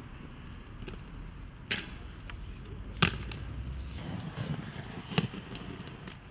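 Inline skates rolling over pavement, with three sharp clacks of skate impacts, the loudest about three seconds in.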